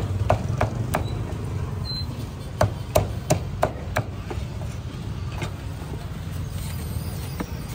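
Cleaver chopping roast meat on a chopping block: sharp single strikes, a run of five at about three a second in the middle, then fewer and fainter chops, over a steady low rumble of street noise.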